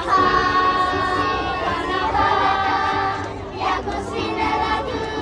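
A group of children singing together, holding long notes, with a brief break about three and a half seconds in.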